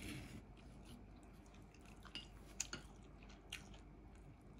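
Faint eating sounds at a table: chewing, and a few light clicks of utensils on dishes.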